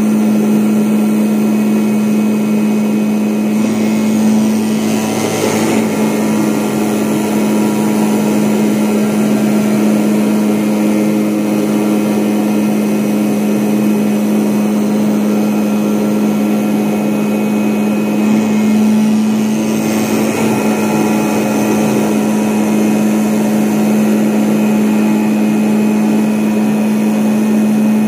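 CNC vibrating-knife cutting machine running while it cuts multilayer sound insulation cotton: a loud, steady hum. Two brief swells of higher hiss come about 4 to 6 seconds in and again around 19 to 21 seconds.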